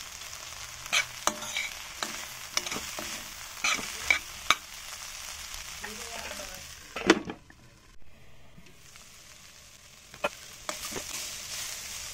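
Chopped vegetables sizzling in a metal pan over a medium gas flame, with a metal spoon scraping and clinking against the pan as they are stirred. A louder clank comes about seven seconds in, after which the sizzle briefly drops away and then returns.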